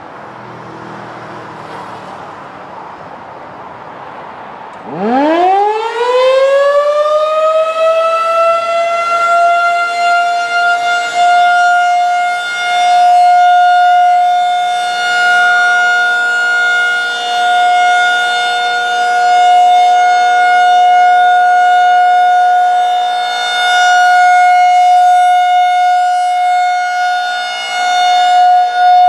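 Federal Signal 2001-SRNB rotating outdoor warning siren winding up about five seconds in. Its pitch rises fast, then levels into a steady full-alert tone that swells and fades as the horn turns. Before it starts there is only a faint rushing noise.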